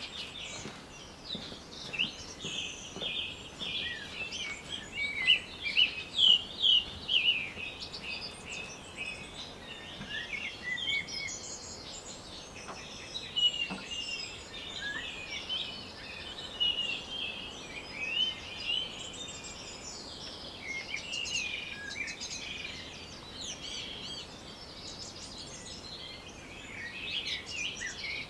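Birds singing and chirping, many quick, overlapping calls and short whistled glides going on without a break, over a soft outdoor hiss.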